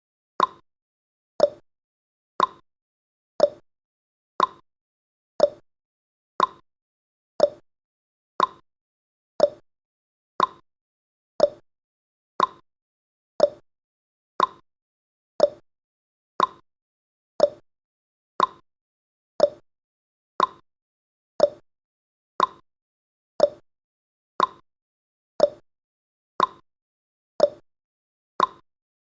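Countdown timer's tick sound effect: a short, pitched tick once every second, each dying away quickly, in an even steady rhythm.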